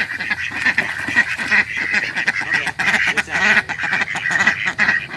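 A group of domestic ducks quacking and chattering, with many short calls overlapping without a break.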